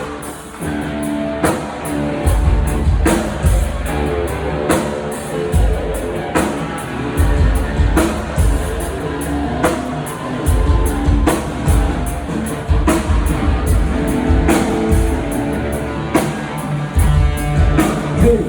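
Rock band playing live through a PA system during a sound check: drum kit keeping a steady beat under guitars.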